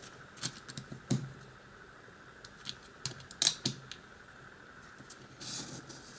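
Scattered small, sharp clicks and taps of tiny padlock pins and springs being handled and set down during disassembly, with a brief soft rustle about five and a half seconds in.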